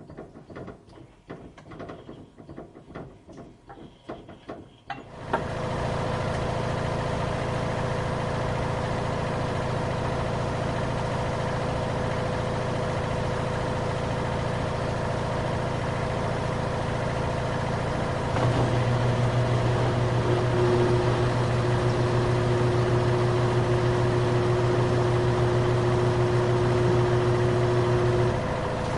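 Washing machine: irregular clicks and knocks for about five seconds, then its motor starts with a steady hum of several fixed tones. About two-thirds of the way in the hum grows louder and a higher tone joins it, easing back shortly before the end.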